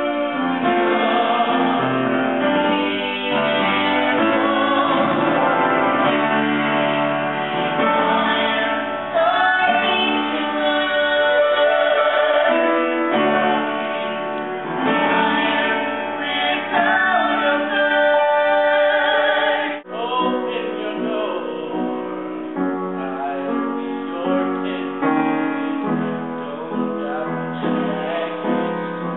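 Musical-theatre singing with piano accompaniment, a woman's voice prominent. The music breaks off abruptly about twenty seconds in and jumps to another sung passage.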